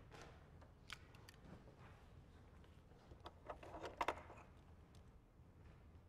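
Near silence with a few faint clicks and rustles, including one click about a second in and a short cluster of them about four seconds in.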